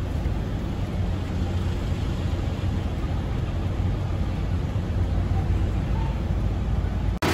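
Steady low engine rumble on a roll-on/roll-off ferry's vehicle deck, heard from inside a car's cabin; it cuts off abruptly near the end.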